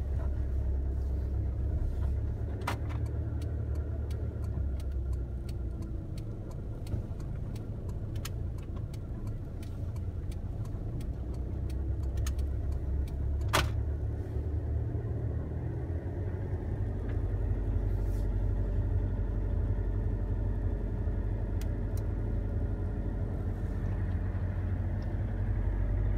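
Car driving slowly, heard from inside the cabin: a steady low engine and road rumble, with a couple of sharp clicks or knocks, one a few seconds in and one about halfway through.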